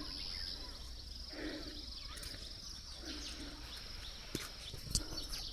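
A steady, pulsing high insect trill with faint, short snatches of bird song, most likely a pale-footed bush warbler singing from cover. Two short clicks near the end.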